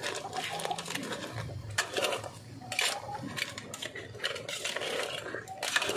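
A spoon clinking and scraping against a metal cooking pot in irregular strokes as crabs simmering in coconut milk are stirred.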